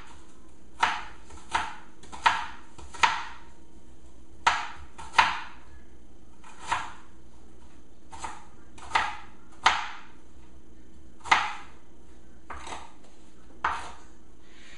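Kitchen knife chopping a white onion on a plastic cutting board: single sharp knocks at an unhurried, uneven pace, roughly one a second.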